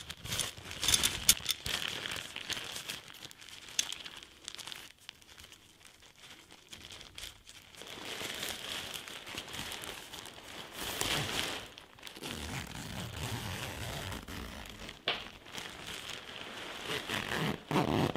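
Crinkling and rustling of a Big Agnes Fly Creek HV UL1 ultralight tent's thin nylon fabric and its stuff sack as they are handled, with scattered sharp clicks.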